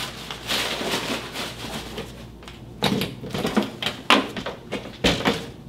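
Cardboard box and paper packing rustling as a pistol case is pulled out, then a string of sharp clicks and knocks as the hard plastic case is set down on a glass counter and its latches are worked open.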